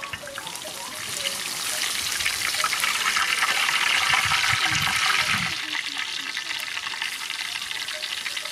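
Rice-flour-battered shrimp deep-frying in hot oil: a loud, steady sizzle full of small pops. It grows louder about a second in and settles to a softer sizzle after about five seconds.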